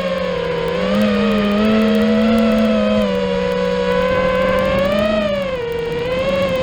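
FPV racing quadcopter's brushless motors whining, several motors at slightly different pitches that rise and fall together as the throttle changes. The main pitch swells near the middle and again about five seconds in, then drops back.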